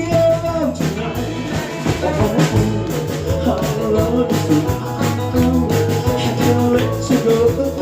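Band playing an instrumental break between verses of a rock-and-roll song: a lead melody line with held and sliding notes over a steady beat.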